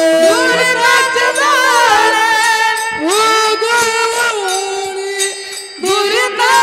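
Kirtan music between sung lines of an abhang: a sliding, ornamented melody over held steady tones, with jingling cymbals. The music drops briefly near the end, then comes back in.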